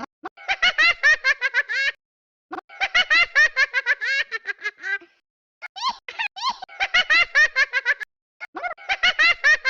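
High-pitched laughter in four bouts of rapid, even pulses, each bout lasting one to two seconds and separated by short silences.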